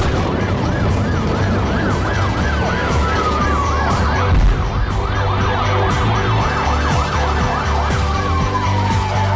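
Emergency vehicle sirens: one in a fast yelp, warbling up and down about three to four times a second, while a second siren glides slowly down in pitch twice. A steady low hum runs beneath.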